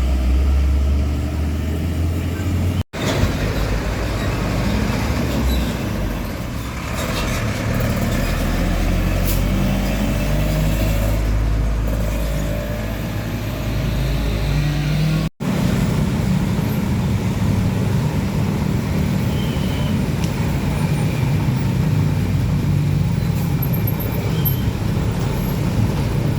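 Heavy diesel trucks driving past on a road, engines running with a low drone and road noise. The sound cuts out briefly twice, about three seconds and fifteen seconds in, where separate clips are joined.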